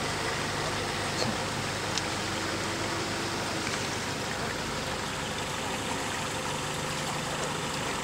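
Four-wheel-drive truck's engine idling steadily, with a couple of faint clicks about a second and two seconds in.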